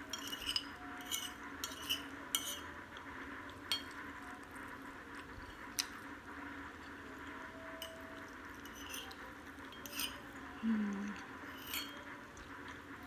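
Metal spoon clinking and scraping against a ceramic plate while scooping up noodles: scattered sharp clicks, several in quick succession at the start and more spread out after, over a steady faint hum.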